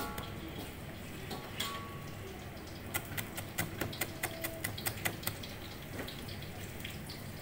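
Kitchen knife chopping on a plastic cutting board, mincing aromatics: sharp separate taps, sparse at first, then a quicker run of about three to four strikes a second from about three seconds in.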